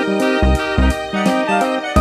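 Background music with pitched instrument notes over a steady bass beat.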